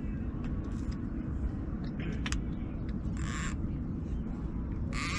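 A steady low rumble of open-air noise, with a short wavering bird-like call about three seconds in and a few faint clicks.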